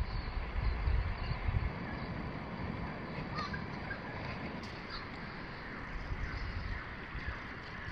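Outdoor coastal ambience: a steady low rumble with a few faint bird calls scattered through it.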